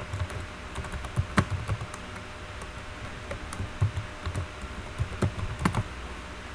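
Typing on a computer keyboard: two runs of key clicks with a short pause between, as a password is typed and then typed again to confirm it.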